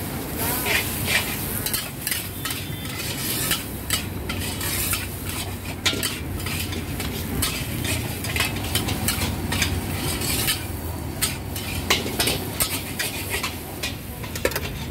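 A long-handled metal spatula scrapes and clanks against a large steel wok as yellow noodles and greens are stir-fried, with a steady sizzle underneath.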